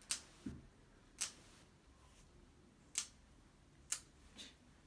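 Plier-style dog nail clippers snipping through a small dog's nails: four sharp clicks at uneven intervals, roughly a second apart.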